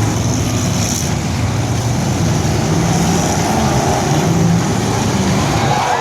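Several demolition derby vehicles' engines running loudly together, revving up and down.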